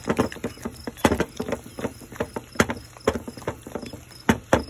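A plastic utensil stirring and mashing guacamole in a plastic bowl: irregular soft wet slaps and knocks against the bowl, several a second, the loudest about a second in and near the end.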